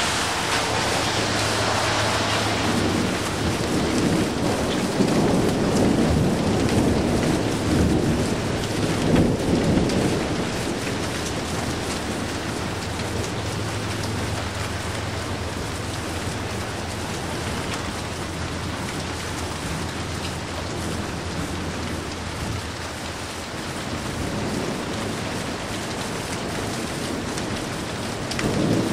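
Steady heavy rain during a thunderstorm. A sharp thunderclap falls at the very start, then a long low rumble of thunder rolls on for the first ten seconds or so. A shorter burst comes near the end.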